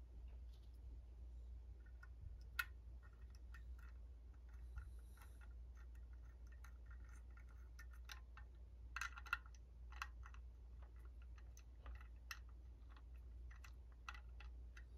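Faint, irregular metal clicks and ticks of a screwdriver driving screws into a Ford alternator's brush holder inside the stator housing. There is a sharper click about two and a half seconds in and a quick cluster of clicks around nine seconds.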